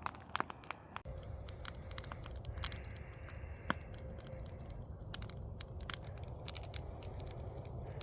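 Campfire crackling, with irregular sharp pops and snaps from the burning wood. A steady low rumble sets in abruptly about a second in.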